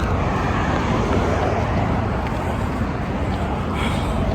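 Steady low rumble of car road noise, with a brief higher sound near the end.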